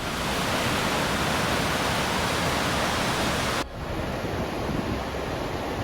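Steady rushing roar of a waterfall. About three and a half seconds in it cuts suddenly to a quieter, duller rush.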